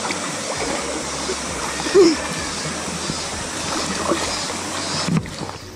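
Water sloshing and splashing right at the microphone as dogs swim and wade in a shallow river, over the steady rush of the stream. A brief, short voice-like sound stands out about two seconds in.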